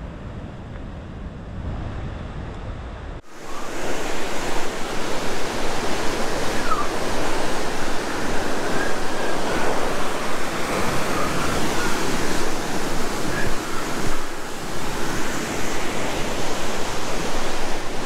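Heavy surf breaking on a rocky shore: a loud, steady wash of breaking waves mixed with wind, starting abruptly about three seconds in after a quieter low rumble. A few faint short chirps sound over it in the middle.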